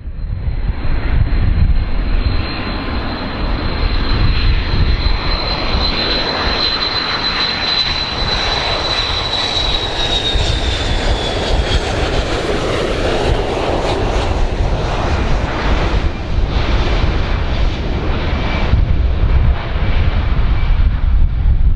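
Large aircraft's engines running loud and steady with a deep rumble, over a high whine that slowly falls in pitch about ten seconds in.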